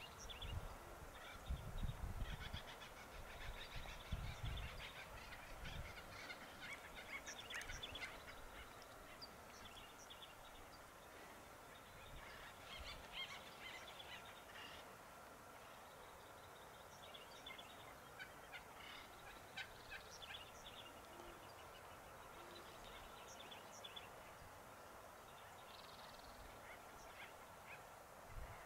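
Wild turkeys calling faintly: scattered bursts of short, rapid notes through the whole stretch. Low thumps on the microphone in the first few seconds.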